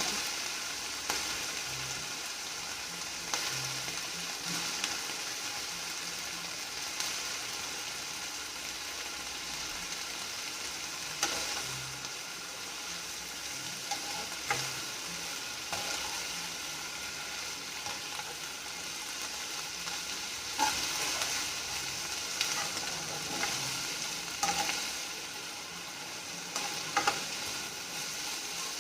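Onion, coriander, mint and spice masala sizzling steadily as it fries in oil in a pan. Every few seconds a spoon knocks or scrapes against the pan as the mixture is stirred.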